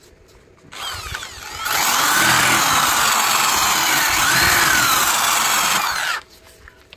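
Angle grinder spinning up with a rising whine about a second in, then grinding a tack weld on steel flush with a disc, and stopping sharply about six seconds in.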